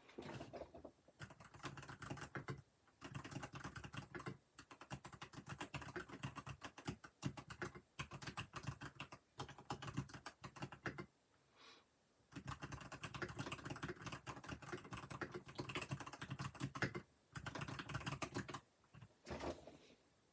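Typing on a Keychron K8 Pro mechanical keyboard with yellow switches: fast runs of keystrokes broken by several short pauses.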